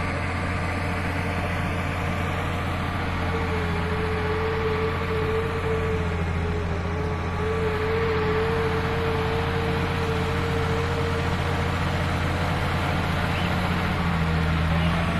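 Bulldozer's diesel engine running steadily, with a higher whine held for several seconds in the middle.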